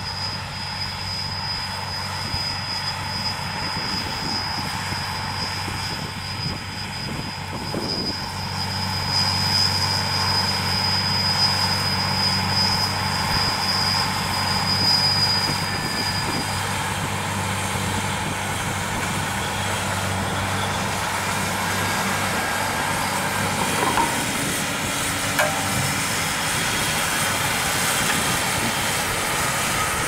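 Fendt 718 Vario tractor's six-cylinder diesel engine running steadily under load while it drives a front-mounted Kuhn rotary power harrow and pulls an eight-furrow Ovlac plough. The sound grows louder as the tractor comes near, about a third of the way in. A high steady whine runs alongside and stops about halfway through.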